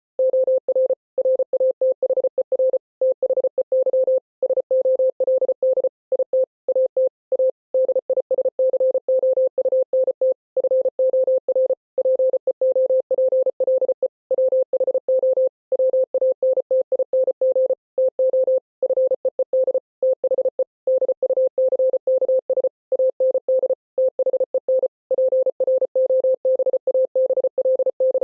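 Morse code played as a single steady beeping tone, keyed rapidly on and off in short and long beeps with brief gaps between them.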